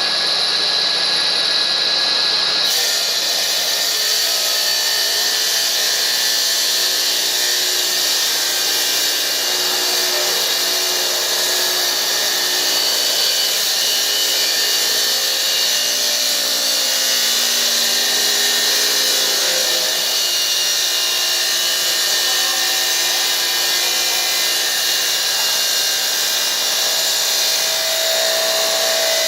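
Nilfisk CFM VHW211 industrial vacuum cleaner running steadily: a high motor whine over a strong airflow hiss, the hiss turning brighter about three seconds in.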